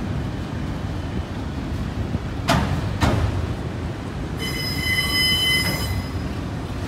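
Autorack freight cars rolling past with a steady low rumble. Two sharp clacks of wheels over a rail joint come about half a second apart, and later a high-pitched wheel squeal lasts about a second and a half.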